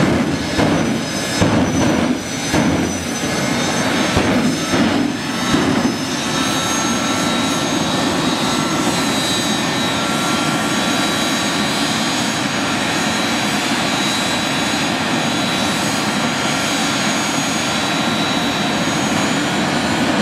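Jet dragster's jet engine running on the start line. For about the first six seconds it surges and pops unevenly, then it settles into an even, steady blast with a thin high turbine whine over it.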